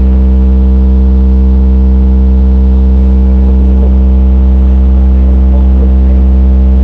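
A car sound system's wall of subwoofers playing one steady, very loud deep bass tone for an SPL loudness measurement. The tone holds without a break.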